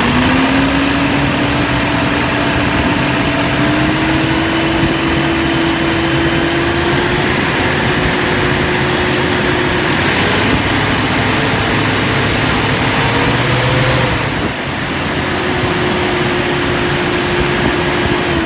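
Toyota Hilux 2KD-FTV four-cylinder turbodiesel engine turning over with a steady whine. The whine rises slowly in pitch, dips briefly about fourteen seconds in, then returns and falls away at the end.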